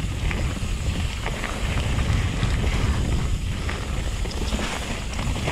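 Wind buffeting the camera microphone over the low rumble of a Yeti SB150 mountain bike's tyres rolling fast down a dirt trail, with occasional clicks and rattles from the bike.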